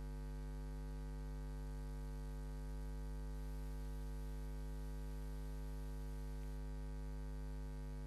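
Steady electrical mains hum, a low buzz with a dense stack of overtones, unchanging throughout.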